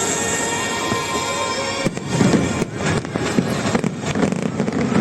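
Fireworks going off over music, with sharp bangs and crackles, the loudest about two seconds in and again a second or two later.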